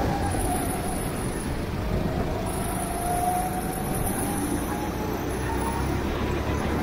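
Go-kart engine running under a steady rush of noise, its faint engine note wavering in pitch.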